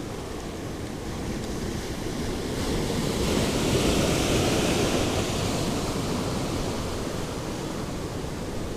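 Sea surf washing against the shore, one wave swelling up about three seconds in and easing off, with wind buffeting the microphone.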